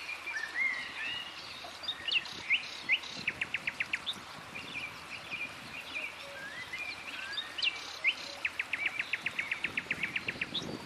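Small songbird singing: scattered chirping notes and two fast trills of evenly repeated notes, a short one about three seconds in and a longer one near the end, over the faint steady rush of the river.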